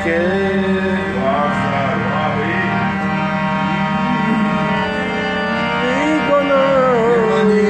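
Harmonium playing a melody over a steady held drone note.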